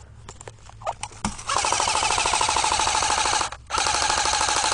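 AK-style airsoft rifle firing on full auto: a burst of about two seconds starting a second and a half in, a brief break, then a second burst of about a second.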